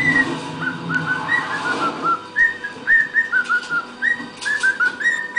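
Cockatiel whistling a tune as a run of short, quick notes, each a brief arching chirp.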